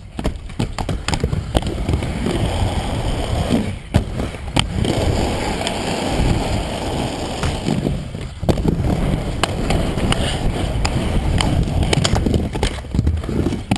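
Inline skate wheels rolling hard over a skatepark's concrete and ramps: a continuous rough rumble broken by many sharp clacks and knocks as the skates hit ramp edges and land.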